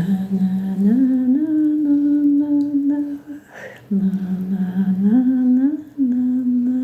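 A voice humming a slow lullaby melody in two phrases, each stepping up in pitch and holding long notes, with a short breath between them a little past halfway.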